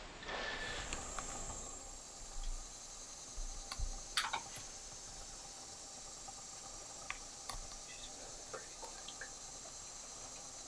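A steady, high-pitched insect chorus with scattered short, sharp clicks and ticks, the loudest about four seconds in.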